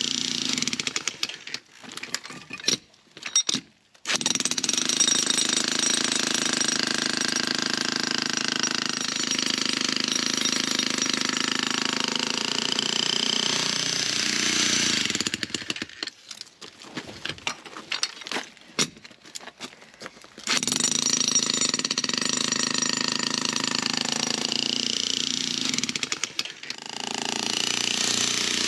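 Electric demolition breaker hammering through a concrete driveway slab, run in long bursts. It stops and starts in short bursts about two seconds in, and again for several seconds just past the middle, before running steadily again.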